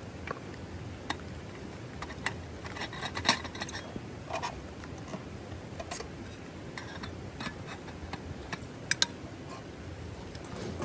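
Steady rain hiss with irregular sharp clicks and taps, the loudest a little past three seconds in and a quick double tap around nine seconds.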